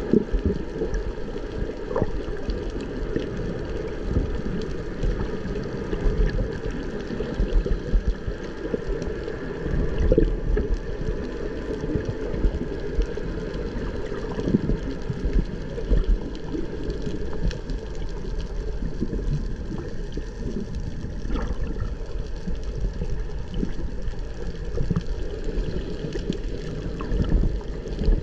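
Underwater noise: a low, muffled wash of moving water with gurgling that swells and fades irregularly.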